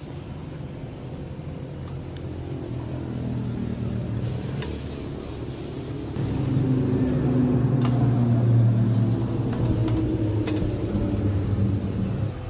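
A motor running with a low steady hum; it gets louder and steps up about halfway through, then drops off sharply just before the end.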